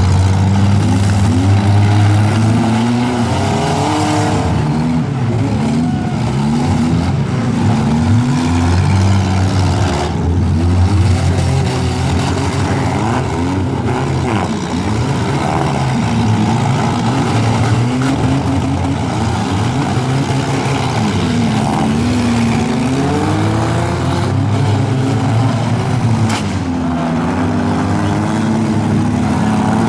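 Several four-cylinder stock cars' engines revving, their pitches rising and falling over one another, with a few sharp bangs of cars colliding.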